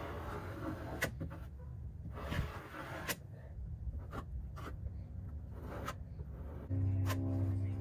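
Hand spreader scraping fairing compound across the fiberglass floor of a boat hull in repeated strokes, with short clicks and taps of the blade on the surface. Near the end a steady low hum starts abruptly.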